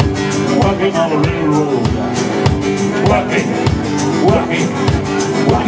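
Live country rock-and-roll band playing with upright double bass, acoustic and electric guitars and drums, keeping a steady beat.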